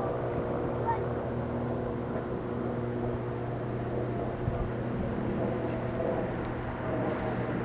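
Distant Cirrus SR20's six-cylinder piston engine and propeller droning steadily as the airplane climbs away after takeoff.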